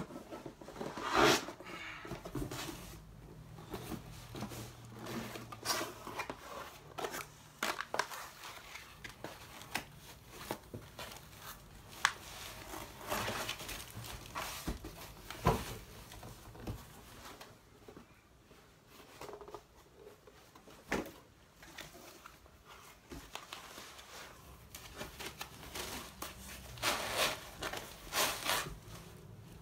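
Packaging rustling and crinkling, with scattered clicks and knocks, as a boxed clutch flywheel is unpacked and handled.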